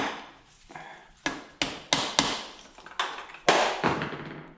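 Hammer tapping on the top end of a Yamaha Raptor 350's engine to pop a stuck part loose once its bolts are out: about eight sharp, irregularly spaced taps, each with a short ring.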